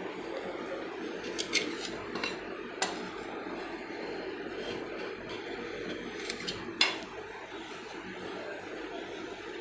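Steel spatula scraping along the steel cold plate of a rolled ice cream pan as it rolls up a frozen sheet of ice cream, giving a few sharp metallic clicks: a cluster in the first three seconds and another about two-thirds of the way through. A steady low hum lies under it.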